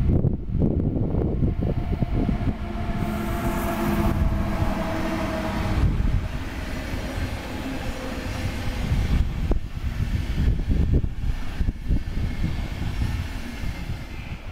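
DB Class 101 electric locomotive and its Intercity coaches passing at speed: a steady rumble of wheels on rail. A hum of several steady tones is heard a couple of seconds in, and sharp clicks come from the wheels on the track as the coaches run by.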